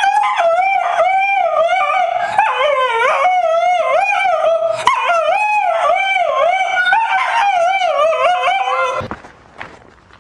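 French bulldog howling: a long run of wavering notes that slide up and down, broken only by short pauses for breath. It stops about nine seconds in.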